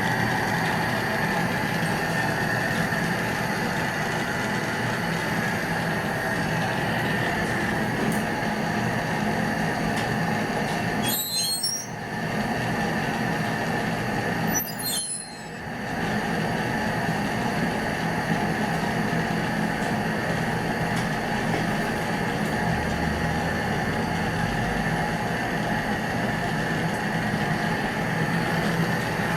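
Glassworking torch flame burning steadily with a rushing hiss while a heavy-wall glass tube's base is heated. Twice, about eleven and fifteen seconds in, the sound drops briefly.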